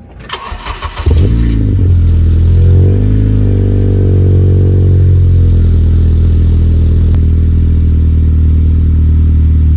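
Honda K24 four-cylinder in a 9th-gen Civic Si, heard through a Full Race cat-back exhaust, starting up about a second in: the revs flare briefly and settle into a steady idle.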